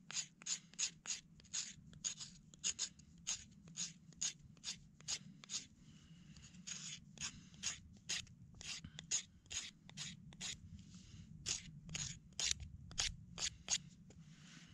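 Knife blade shaving strips off a dry wooden stick to make fire kindling, in short scraping strokes about twice a second with a brief pause near the middle.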